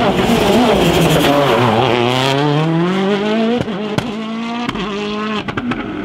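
Citroen DS3 WRC rally car engine at racing revs: the pitch dips, then climbs steadily as the car accelerates. In the second half comes a held engine note broken by several sharp cracks.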